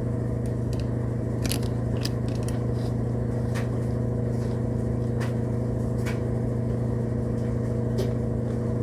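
Steady low electrical buzz from a powered HO model train track and locomotive, with scattered small clicks and crackles; the locomotive is not running, a sign that the track is not properly carrying power to it.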